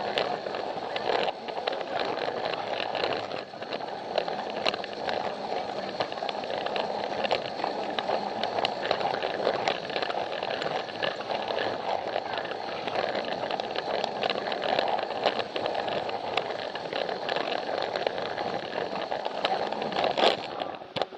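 Plarail battery-powered toy train running, its small gear motor whirring steadily while its wheels click and clatter over the joints of the plastic track.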